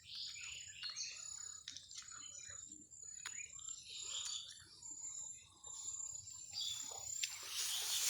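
Small birds chirping repeatedly over a field, with a thin steady high tone behind them. A broad rushing noise builds near the end.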